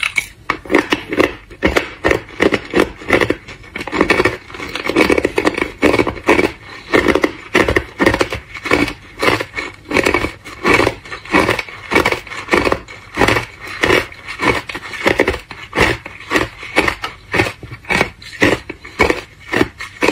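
Thin discs of hard clear ice crunched between the teeth, chewed in a steady rhythm of about two crunches a second.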